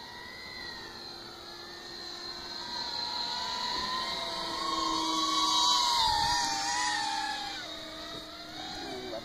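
Radio-controlled B-2 flying-wing model and a chasing 5-inch FPV quadcopter flying past overhead. Their electric whine grows louder to a peak about six seconds in, then drops in pitch and fades as they pass.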